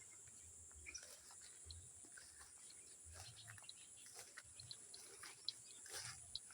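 Faint insect chorus: a steady high-pitched buzz, with many short high chirps scattered through it that come more often toward the end.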